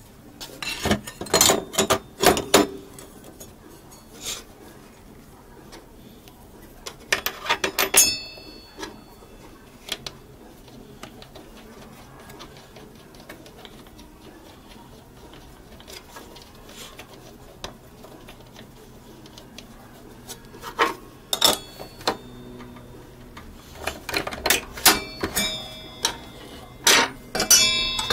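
Metal clinks, clicks and clanks of a table saw's blade, flange and arbor nut being handled and fitted to a Bosch GTS 10 J table saw, a few with a short metallic ring. The sounds come in bursts with long quiet gaps, thickest near the end as the throat plate is set into the table.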